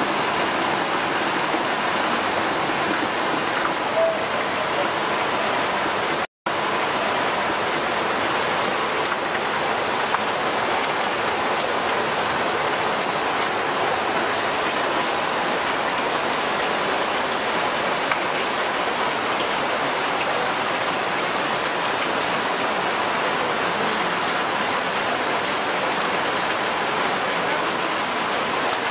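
Steady rain falling onto standing floodwater, an even hiss of drops on the water surface. It cuts out for a split second about six seconds in.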